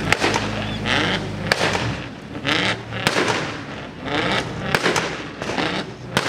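A string of sharp bangs at irregular intervals, several over a few seconds, mixed with repeated bursts of rasping noise about every second and a half.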